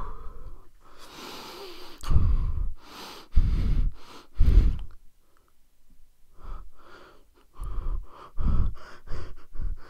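A person's strained breathing and grunts of effort while trying to pull a thin metal chain apart by hand: three heavy breaths in the first half, then a run of shorter, quicker ones.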